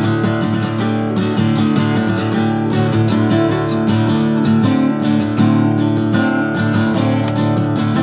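Acoustic guitar strummed in a steady, even rhythm, its chords ringing on between strokes.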